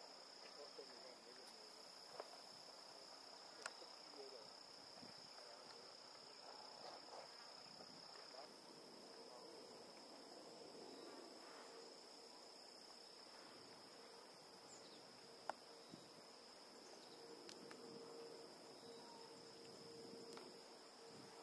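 Faint, steady, high-pitched drone of insects in the vegetation, one shrill unbroken tone, with a couple of sharp ticks.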